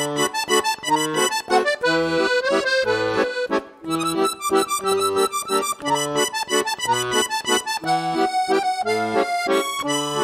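Background music: a melody over chords, with a bass note on the beat.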